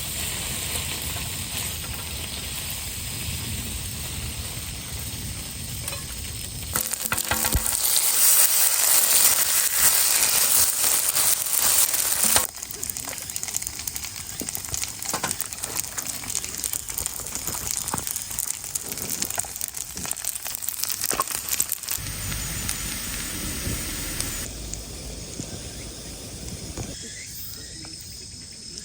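Food sizzling in a pan over a campfire, hissing loudest for about five seconds near the middle, with scattered crackling pops afterwards.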